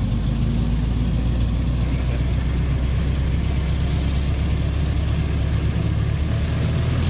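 Ford Model T's four-cylinder side-valve engine running steadily as the car pulls away in low gear, heard from the driver's seat of the open car.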